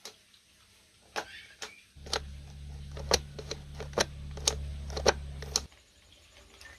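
Sharp clicks and taps of small parts being handled, about a dozen in all. A low steady hum starts about two seconds in and cuts off suddenly near the end.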